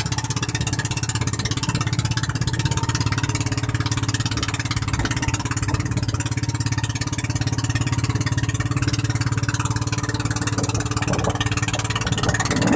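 Motorised outrigger boat (bangka) engine running at a steady speed: a constant low drone with rapid firing pulses and a steady hiss above it.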